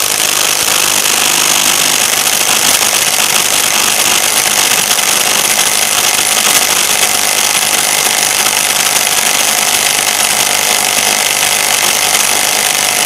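HPT MA-IW155N cordless brushless impact wrench hammering without pause at full power, driving a bolt tight on a hydraulic torque tester to measure its maximum tightening torque. The hammering is loud and steady throughout.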